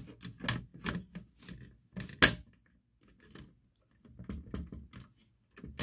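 Irregular clicks and rattles of a vintage smoke alarm's loose plastic cover being handled, with one sharper click a little over two seconds in.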